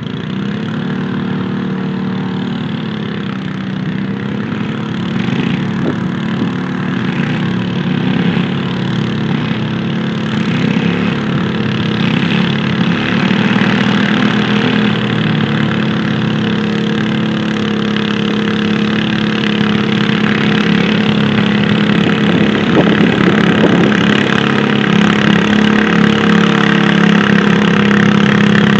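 Pulling garden tractor's engine running steadily, getting slowly louder as the tractor drags the weight sled down the track.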